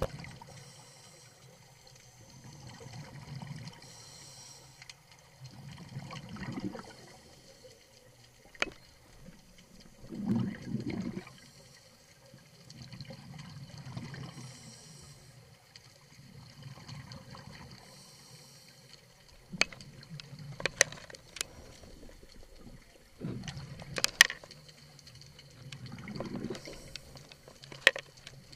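Scuba diver breathing underwater through a regulator: a hiss on each inhale and a bubbling rumble of exhaled air, repeating every few seconds. Several sharp clicks come in the second half.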